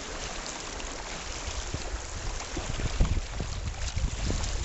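River rapid water rushing around a kayak, with irregular low knocks and buffets scattered through.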